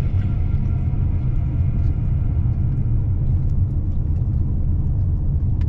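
Steady low road and engine rumble of a Toyota car driving along, heard inside its cabin.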